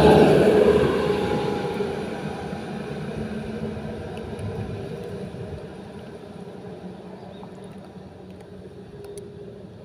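A motor vehicle passing close by, loudest at the start and then fading away over several seconds with a steady engine hum.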